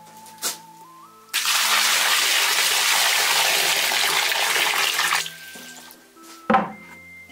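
Water poured in a stream into a large wok over raw lamb pieces: a loud, even rushing splash that starts about a second in and stops about four seconds later. A single sharp knock follows near the end.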